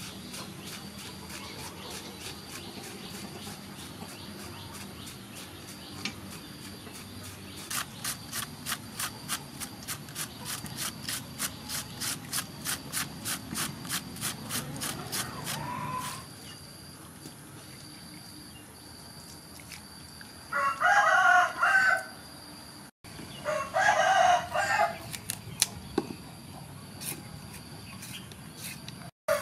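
Cabbage being shredded on a hand shredder into a steel bowl, rasping strokes about three a second that stop about halfway through. Later a rooster crows loudly twice, a few seconds apart.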